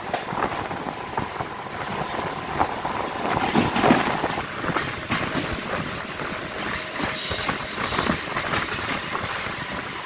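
Mumbai AC suburban local train running on the adjacent track: steady rolling rumble of steel wheels on rail, with irregular clicks and rattles, loudest around four seconds in.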